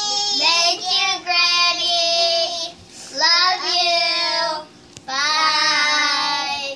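Children singing, in about five phrases of long held notes with short breaks between them.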